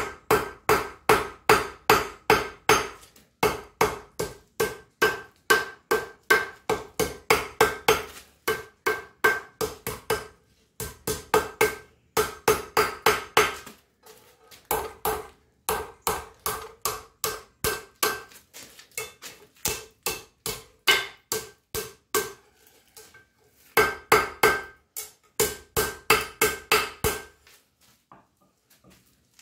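Hand hammer striking a red-hot steel bar on an anvil, about two to three blows a second in runs with short pauses between, each blow leaving a ringing tone from the anvil. The hammering stops a couple of seconds before the end.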